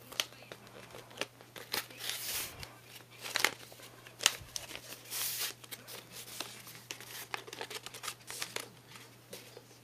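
A rolled paper tube and yellow tape handled by hand: paper crinkling and rustling with many sharp clicks and taps, and two longer rustles about two and five seconds in, as the tape is pressed and smoothed onto the tube.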